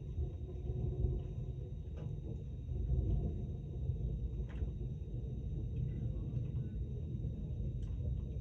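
Thunder rumbling low and rolling on for several seconds, swelling a few seconds in, with a few faint ticks of raindrops.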